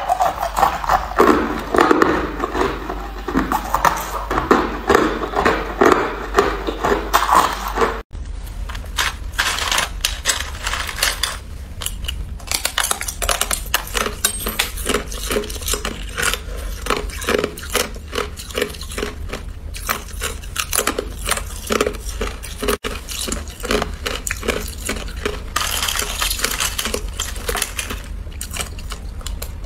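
Ice being bitten and crunched between the teeth: a dense run of crunches and crackles. About eight seconds in the sound cuts off abruptly and another stretch of ice crunching follows.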